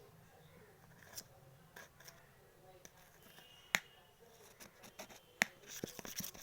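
Faint sticky clicks and small squelches of coloured glue slime being mixed and kneaded by hand, sparse, with two louder clicks in the second half.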